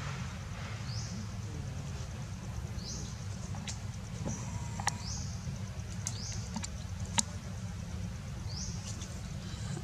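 Outdoor ambience: short, high, rising chirps repeating every second or two over a steady low rumble, with a few sharp clicks, the loudest about seven seconds in.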